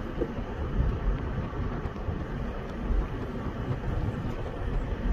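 A car on the move: a steady low rumble of engine and road noise.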